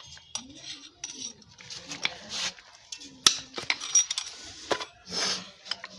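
Metal clinks and clatter of hand tools and steel parts as an e-rickshaw's rear differential (crown) unit is taken apart, with one sharp clink about three seconds in.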